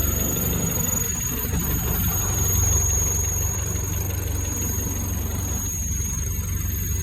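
Land Rover Series IIA engine idling steadily, heard in the engine bay, with a steady high-pitched squeak over the engine's rumble.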